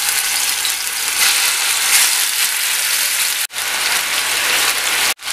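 Marinated boneless chicken pieces sizzling as they shallow-fry in hot oil in a pan: a steady crackling hiss. It breaks off for two moments, about three and a half seconds in and near the end.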